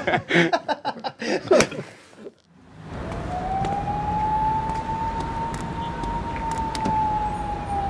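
Voices for about two seconds, then after a short break a steady low city rumble with a single long siren tone that slowly rises and then falls gently.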